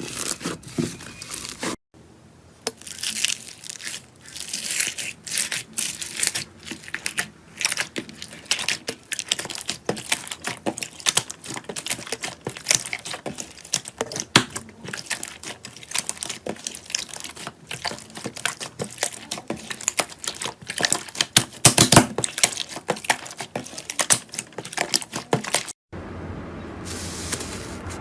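Slime being squeezed and worked by hand, giving a dense run of sharp crackles, pops and clicks. The sound drops out abruptly about two seconds in and again near the end.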